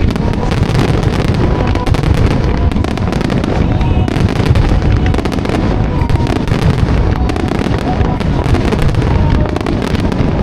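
A dense, continuous barrage of aerial firework shell bursts from a rapid-fire starmine, with overlapping bangs and crackle and no gaps between them.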